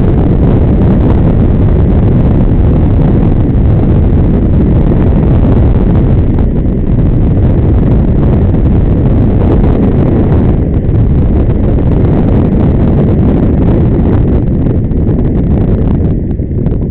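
Heavy wind buffeting on the microphone of a camera riding fast along a rough gravel track, a loud, dense rumble mixed with jolts from the uneven surface. It eases slightly near the end.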